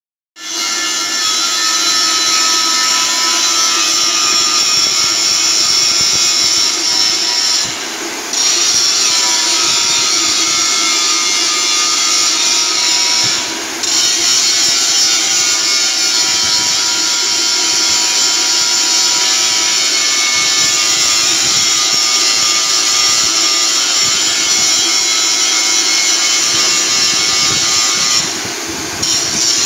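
Handheld electric angle grinder grinding steel, with a loud, steady hiss over the motor's hum. The grinding drops away briefly three times.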